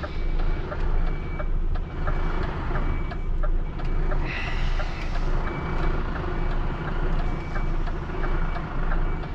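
Heavy recovery truck's diesel engine running as it reverses slowly, with a reversing alarm giving short, regular beeps. A brief hiss comes about four seconds in.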